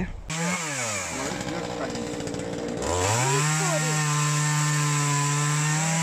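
Chainsaw engine dropping from high revs to a low idle, then about three seconds in revving up and holding a steady high speed with small dips as it cuts through a log.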